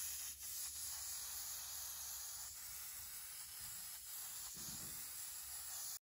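Airbrush spraying paint: a steady hiss of air from the gun, with a few faint clicks.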